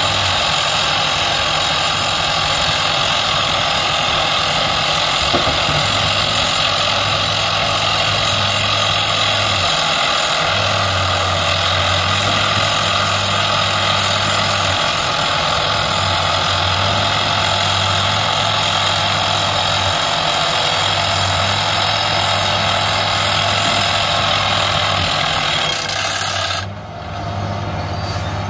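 Soosan JD-800 hydraulic crawler rock drill boring into rock with dust blowing from the hole: a loud, steady, dense noise, under which a low hum drops out and comes back every few seconds. Near the end the high part of the noise cuts off suddenly and a lower running sound carries on.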